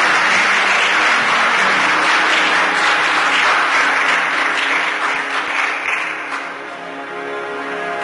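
Congregation applauding, many hands clapping together over soft instrumental music. The applause dies away a little after six seconds in, and the music plays on.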